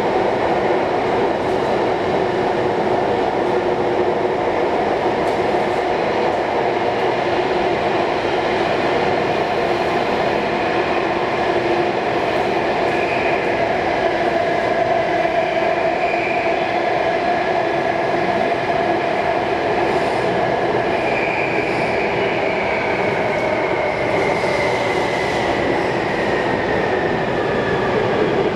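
Alstom Metropolis C830 metro train heard from inside the carriage while running: a steady loud rumble of wheels and running noise, with a whine from the electric traction motors. From about two-thirds of the way through, a whine falls steadily in pitch as the train slows toward the next station.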